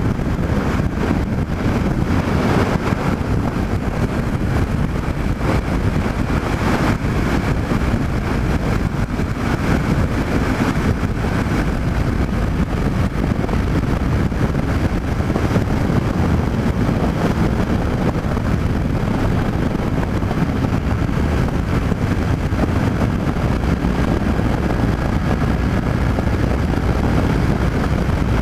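Yamaha MT-07's parallel-twin engine running at highway speed under heavy wind rush on the microphone, a loud, steady mix.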